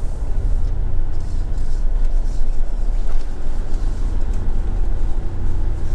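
Motorhome engine and road noise heard from inside the cab, a steady low rumble as it rolls slowly along the campsite road. A faint steady hum joins in a little past the middle.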